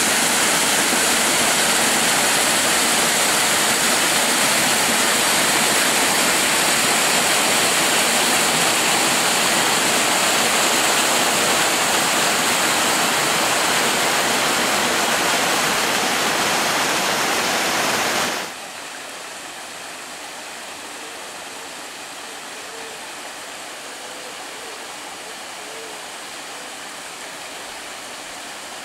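Glen stream rushing and splashing down a rocky cascade. About two-thirds of the way through it cuts suddenly to a much quieter, steady rush of water from a small waterfall.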